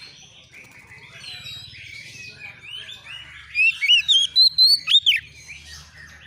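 Oriental magpie-robin (kacer) song: a steady run of varied chirps and whistles. About three and a half seconds in comes a loud burst of about eight sharp, quick whistled notes, lasting under two seconds.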